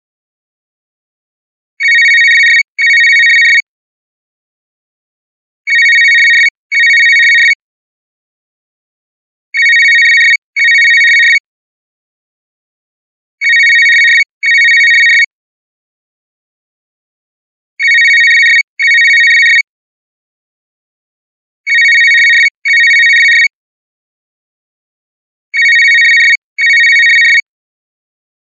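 Old monophonic electronic cell phone ringtone ringing in a double-ring pattern. It gives pairs of short high-pitched bursts, seven pairs about four seconds apart.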